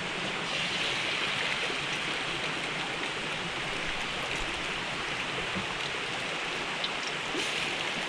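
Pork tenderloin strips deep-frying in a pan of hot oil: a steady sizzle with a few faint pops.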